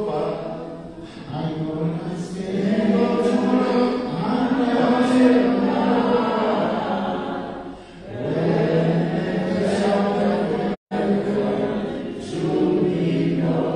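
Voices singing unaccompanied, chant-like, with long held notes. The sound cuts out completely for a moment about eleven seconds in.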